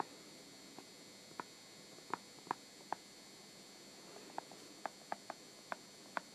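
Faint, irregular taps of a stylus on a tablet screen while handwriting: about ten small ticks over a steady faint hiss and electronic whine.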